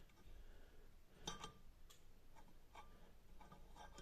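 Near silence with a few faint metallic clicks and light scrapes from a steel vernier caliper being set against the rim of a cylinder liner, the clearest a couple of clicks about a second in.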